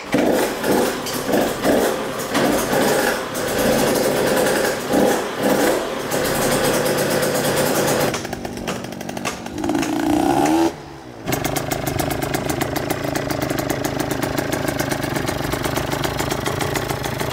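KTM SX85's small two-stroke single-cylinder engine running just after being started, revved in uneven surges for the first several seconds. After a short break about eleven seconds in, it runs steadily with a rapid, even beat.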